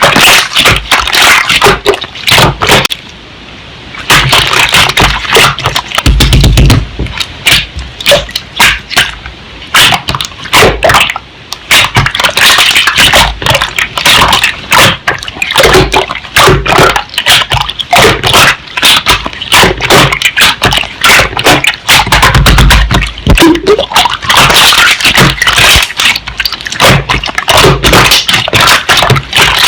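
Slime being squeezed, pressed and stretched by hand, giving a dense run of wet clicks, crackles and pops, with a few soft low thuds.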